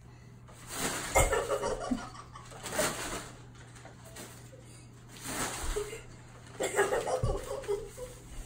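A large sheet of brown kraft paper crinkling and swishing as it is flapped and dragged over carpet, in four bursts a couple of seconds apart.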